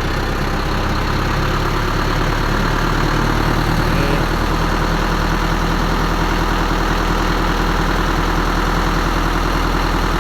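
Dump truck engine running steadily, driving the hydraulic pump while the repaired tipper hoist is tested and lifts the bed.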